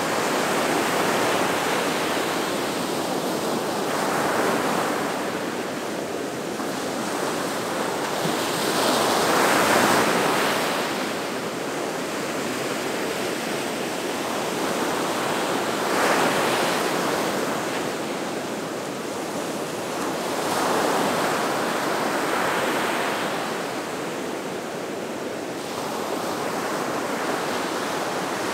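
Gulf of Mexico surf washing onto the beach: a continuous rush of breaking waves that swells and eases every several seconds, loudest about ten and sixteen seconds in.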